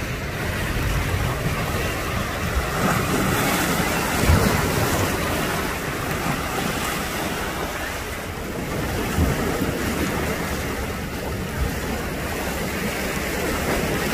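Sea surf washing against a breakwater of concrete blocks and rocks, with wind buffeting the microphone in low thumps.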